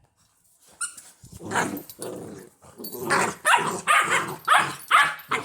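Labrador retriever puppies barking and growling as they pick at each other in play. After about a second of quiet, the short barks start and then come quickly, about three a second, over the last couple of seconds.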